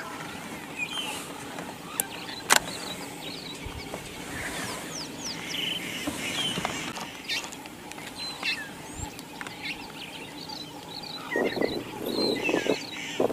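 Small birds chirping over open bush ambience, with two sharp clicks about two seconds in. Near the end, a louder, rough, pulsing growl from a lion takes over.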